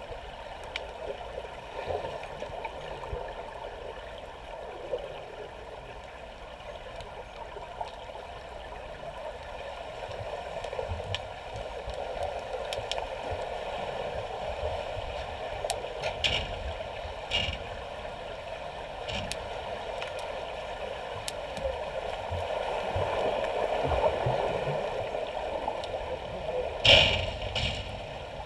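Swimming-pool water heard underwater: a steady muffled churning rush from swimmers pushing off and kicking through the lanes, with scattered clicks and knocks and a louder rush near the end.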